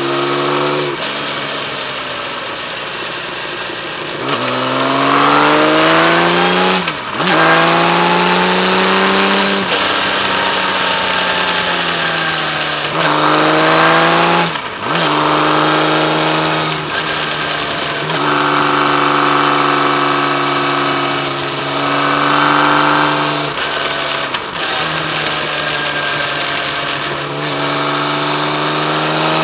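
Kawasaki Z1300's liquid-cooled inline-six engine on the move. It accelerates repeatedly, its pitch rising and then breaking off briefly between gears. Between the climbs it eases off with a falling pitch, then holds a steady cruise.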